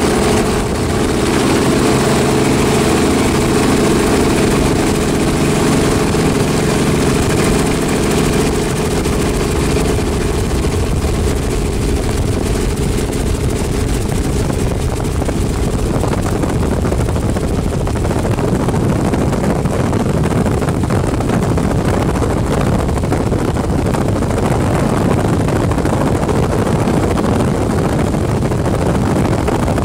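Helicopter engine and rotor running steadily, a loud, even hum. About halfway through, the steady hum gives way to a rougher rushing noise as the flight goes on.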